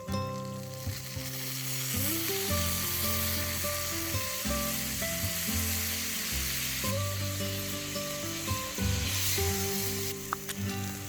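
Food frying in a hot pan, a steady sizzling hiss, with background music underneath.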